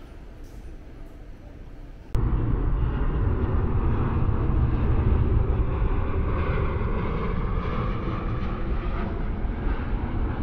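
Steady, loud low rumble of a vehicle running, cutting in abruptly about two seconds in after a quieter, noisy stretch.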